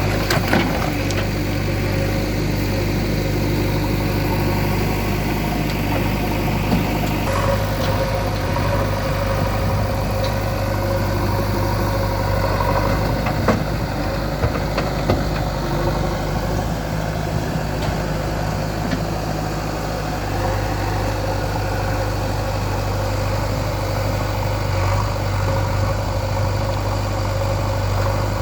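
JCB 3DX backhoe loader's diesel engine running steadily, its note shifting a couple of times as the load on it changes, with a few short knocks.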